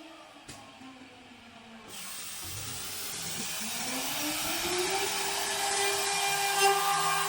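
Spindle motor of a CNC lock-milling machine winding down, then about two seconds in spinning back up with a rising whine and a hiss, holding a steady high whine at speed.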